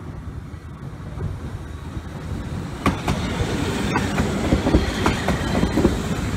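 Setagaya Line tram approaching and passing close by. A low rumble grows louder, then from about three seconds in the wheels clack and knock over the rail joints.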